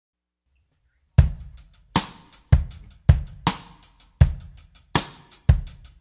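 Background music: a drum beat of kick, snare and hi-hat that starts about a second in after silence, with no other instruments yet.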